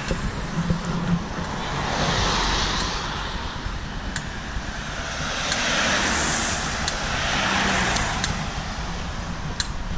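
Road traffic: cars passing by, one swelling about two seconds in and another around six to eight seconds, over a steady low traffic rumble, with a few faint clicks.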